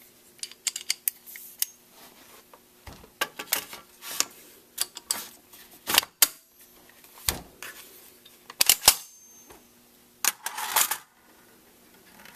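Irregular clicks, knocks and rattles of an FN PS90's metal barrel-and-receiver assembly being handled and fitted back into its polymer stock, with a short burst of rattling about ten seconds in.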